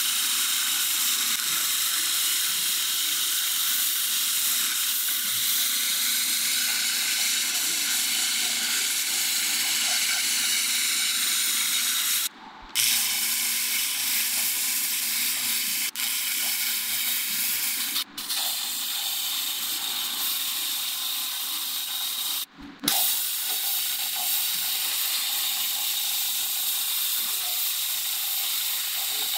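Laser cleaner ablating rust from iron parts: a steady high hiss, broken off briefly three times.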